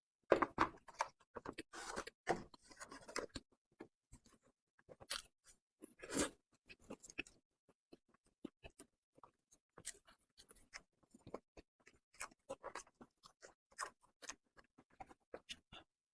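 Close-miked chewing and mouth sounds of a person eating: irregular short smacks and clicks, busiest in the first few seconds.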